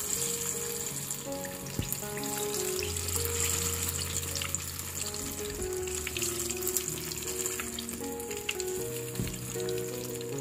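Sesame-battered banana fritters deep-frying in hot oil, a steady sizzle full of fine crackling pops.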